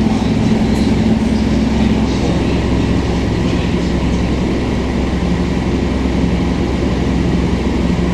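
Scania K230UB city bus heard from inside the cabin while under way: its Scania DC9 diesel engine and ZF automatic gearbox run with a steady drone. The engine's pitch drops about two seconds in.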